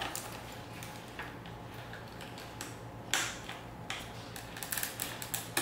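Light plastic clicks and rustling as cable plugs are handled and pushed into a motorcycle helmet's Bluetooth unit. A sharper click comes about three seconds in, and a run of small clicks follows near the end.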